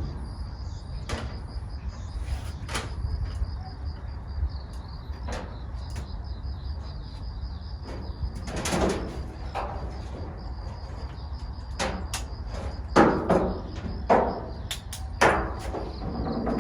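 Scattered knocks, clicks and clatter of hand work on a camper box, loudest in a cluster near the end. Underneath runs a steady low hum and a faint, steady high tone.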